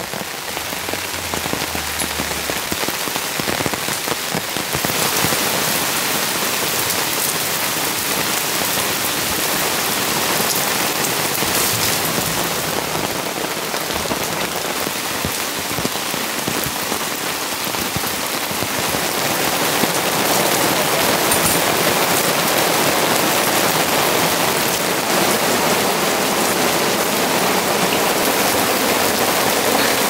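Steady autumn rain falling, a dense, even patter that gets a little louder about five seconds in.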